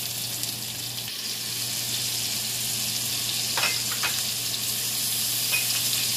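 Chopped onions sizzling in hot rendered bacon grease in a Dutch oven: a steady frying hiss that grows a little louder as they are stirred in. There are two brief spatula scrapes about midway.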